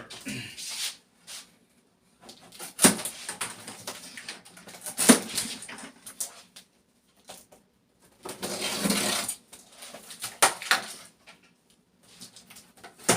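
A refrigerator's cardboard packaging being handled and worked at by hand. Several sharp knocks and taps a second or two apart, with a longer scraping stretch about eight seconds in.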